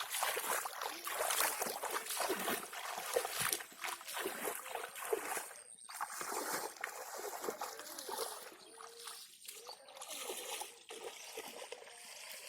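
Water splashing and trickling in irregular bursts, busier and louder in the first half and quieter later on.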